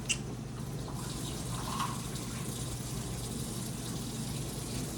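Kitchen tap running steadily as a cup is filled with water, with a brief click near the start.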